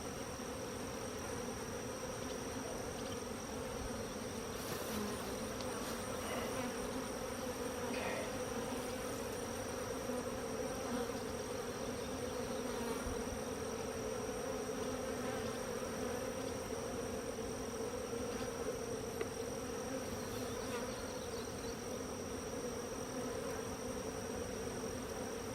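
Honeybees buzzing steadily in a dense swarm around an opened hive, a low, even drone.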